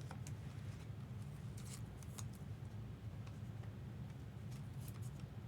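Faint, scattered clicks and light rustles of trading cards being handled and sorted, over a steady low hum.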